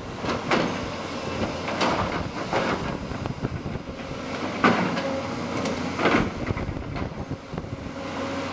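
Tracked excavator digging, its engine running steadily, with about five short scraping clanks as the bucket works the rubble.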